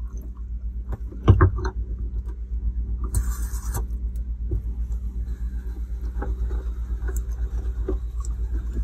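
Boat's electric freshwater pressure pump running with a steady, fast-pulsing hum while water flows from the faucet. There is a sharp knock about a second in, and a brief hiss of spray about three seconds in.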